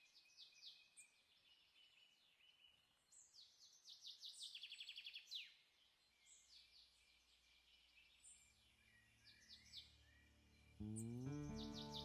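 Faint wild birdsong: many short high chirps, with a fast run of repeated notes about four to five seconds in. Background music with sustained notes starts suddenly near the end.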